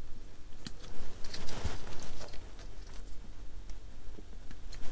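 Sprue cutters snipping small plastic parts off a model kit's sprue: a handful of sharp clicks spaced unevenly, with small handling noises between them.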